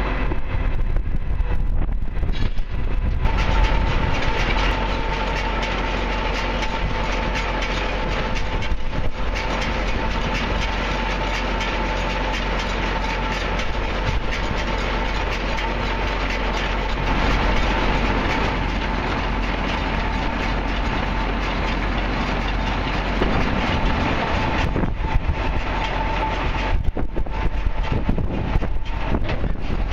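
New Holland BR7090 belt-type round baler running on a tractor's 1000 PTO drive: a steady mechanical clatter with a steady whine. It fills out about three seconds in and thins near the end.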